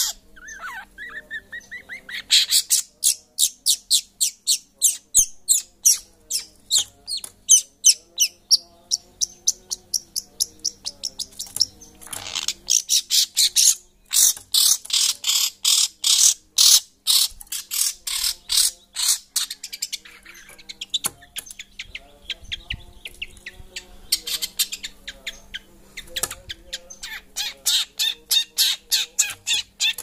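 Long-tailed shrike (cendet) giving harsh, rapid chattering calls, about four a second, in long runs broken by short pauses.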